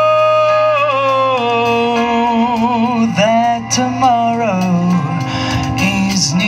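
Live jazz band of violin, bass guitar, keyboards, drums and saxophone playing: a long held note, then a winding melody with vibrato and slides over a moving bass line.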